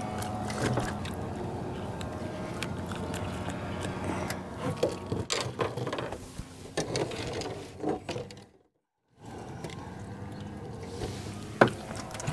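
Fishing reel cranking and the knocks of rod and hands as a crappie is brought aboard a small boat, over a steady mechanical hum. The sound cuts out completely for about half a second about two-thirds of the way in.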